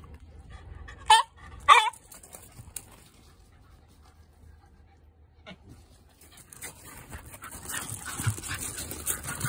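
Shiba Inu giving two short, high-pitched whining cries about a second in, then scuffling on gravel from about six seconds in.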